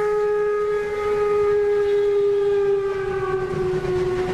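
A steam locomotive whistle blowing one long steady note, its pitch sagging slightly near the end.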